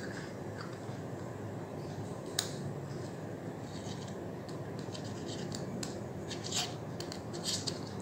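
Small threaded camera-lens parts, a 1.25-inch UV/IR cut filter and a knurled adapter, being handled and screwed together: a sharp click a couple of seconds in, then a run of small clicks and scratchy rubbing in the second half, over a steady background hiss.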